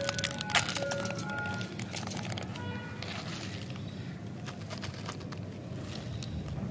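Thin plastic candy wrapper crinkling and crackling as a small packet of chocolate candies is opened by hand, busiest in the first two seconds, then only a few faint rustles over a low steady background noise.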